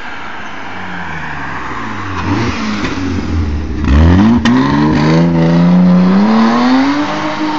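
BMW 325i's straight-six engine under hard throttle: its pitch dips, then climbs steadily for several seconds as it accelerates, loudest in the second half. A single sharp click about halfway through.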